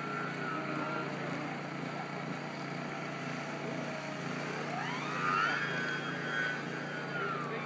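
Electric RC aerobatic plane's motor and propeller whining. The pitch rises about four and a half seconds in as the plane comes by low, holds, then falls away near the end, over a steady low hum.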